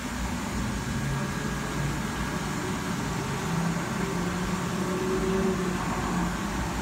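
A steady low mechanical hum with a constant hiss and no distinct events.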